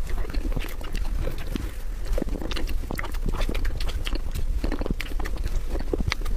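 Close-miked eating of soft chocolate mousse cake from a spoon: wet mouth and lip smacks and small clicks, many of them in an irregular run, over a low steady hum.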